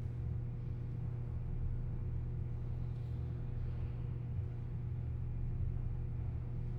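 Stairwell ambience: a steady low hum with faint, soft swells of air noise above it.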